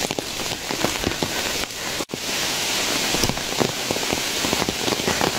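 Heavy rain falling, a steady hiss dotted with many sharp ticks of nearby drops, with a split-second break about two seconds in.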